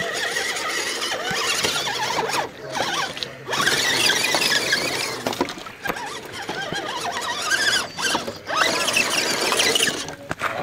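A 1/10-scale electric RC crawler truck's motor and drivetrain whining under load as it climbs over rocks. The high squealing whine wavers up and down in pitch, with several brief breaks.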